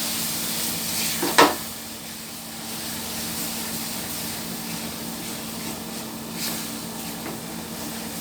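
Wheat flour roasted in ghee sizzling in a kadai as hot sugar water is stirred in, with a sharp knock about a second and a half in and a lighter one later.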